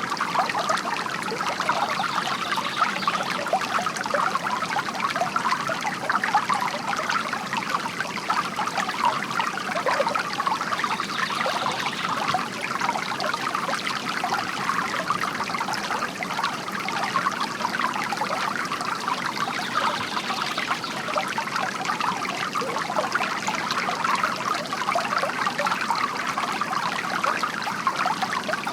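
Water trickling and splashing steadily from a bamboo water fountain.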